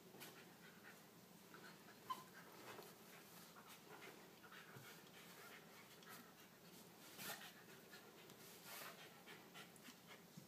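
Faint sounds of a Corgi puppy wrestling with a ferret on a blanket: the puppy's breathing and small scuffles. A few brief, louder rustles stand out, about two seconds in, a little after seven seconds and near nine seconds.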